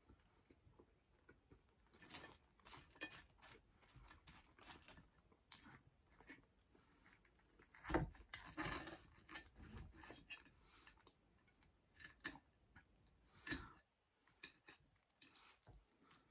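Faint clicks and scrapes of a metal knife and fork cutting battered fish and chips on a ceramic plate, with quiet chewing; the loudest cluster of scrapes comes about eight seconds in.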